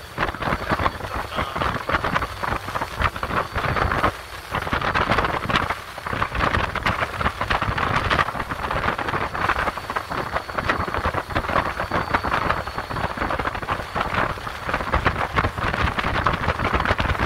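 Rushing wind and water noise from a small motor yacht running at sea, with gusts buffeting the microphone and a faint steady high tone.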